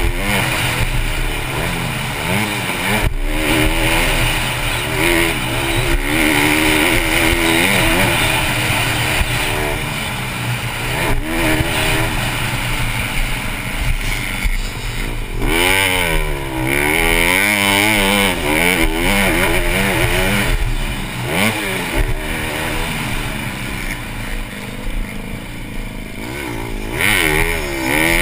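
Honda CRF150R four-stroke single-cylinder dirt bike racing hard, its engine revving up and falling back again and again through the gears, under a steady rush of wind on a helmet-mounted camera. A few sharp knocks cut through from bumps and landings.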